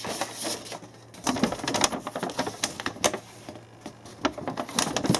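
A folded paper instruction leaflet being unfolded and leafed through: crisp paper rustling with irregular sharp crackles.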